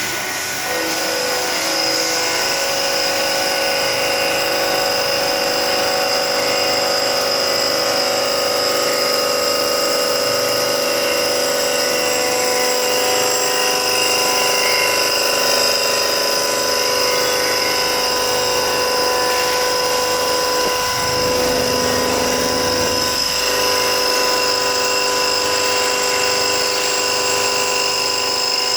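CNC vertical machining center at work, its spindle and cutter making a steady whine of several fixed tones. A brief lower-pitched change comes about three-quarters of the way through.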